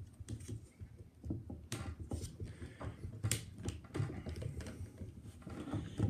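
Two sealed lead-acid UPS batteries being handled: their plastic cases knock and scrape together as one is set on top of the other, with scattered small clicks and a few sharper ones around two and three seconds in.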